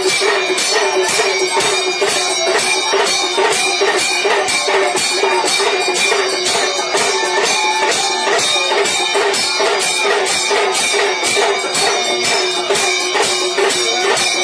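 Temple aarti music: metal percussion struck in a steady rhythm, about three strokes a second, over a continuous droning tone.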